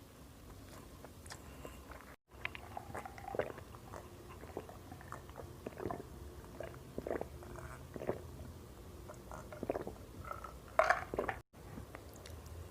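Close-up eating sounds: chewing and wet mouth noises with small scattered clicks, from rice and goat curry being eaten by hand. The sound drops out completely twice, briefly, about two seconds in and near the end.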